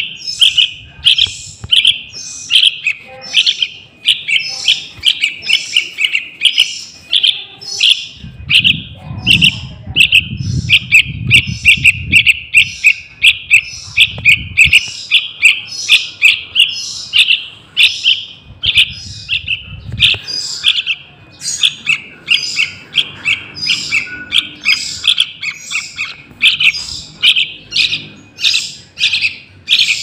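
Sooty-headed bulbul (trucukan) chick calling: short, high chirps repeated about two a second without a break. A low rumble sits underneath for a few seconds in the middle.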